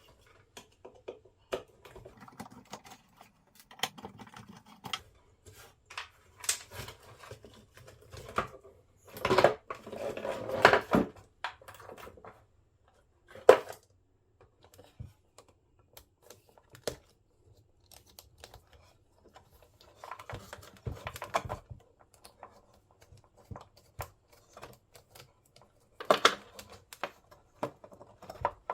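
Hands handling and working on the plastic parts of a jobsite radio: scattered clicks, taps and knocks, with a longer stretch of rubbing or scraping about nine to eleven seconds in.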